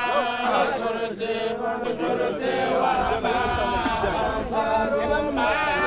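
A crowd of men chanting together, many voices holding long notes over one another: religious chanting by mourners.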